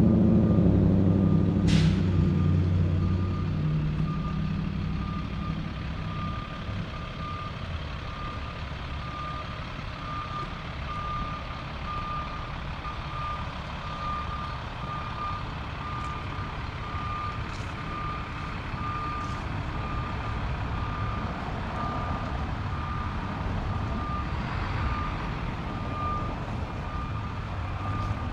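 A truck's reversing alarm beeping steadily, about one and a half beeps a second. Under the beeping, a vehicle engine runs loud at first and fades away over the first few seconds, with a sharp click about two seconds in.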